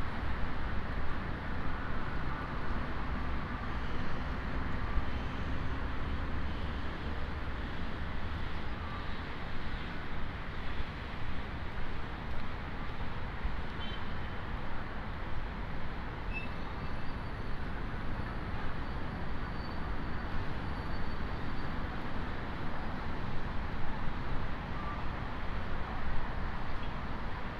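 Steady outdoor city street noise, mostly a continuous low rumble of road traffic.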